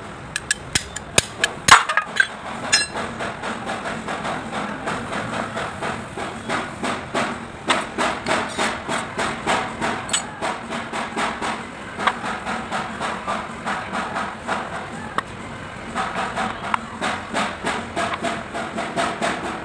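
Repeated hammer taps on metal: a few uneven blows at first, then a steady run of about two to three strikes a second, each with a short metallic ring.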